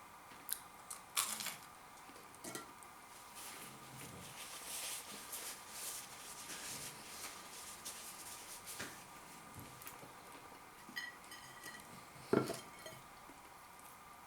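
A few sharp clinks and knocks of a plate and cutlery being handled, loudest about a second in and again near the end, with softer handling noise between.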